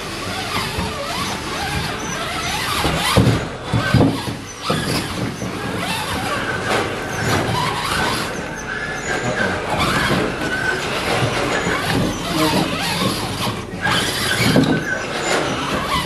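A 1/10-scale RC rock crawler's electric motor and gears whining as it works over the course, with a few knocks about three to five seconds in.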